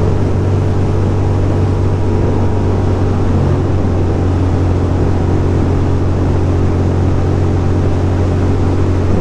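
2006 Ducati Monster 620's air-cooled L-twin engine running at a steady cruise, with wind and road noise rushing past.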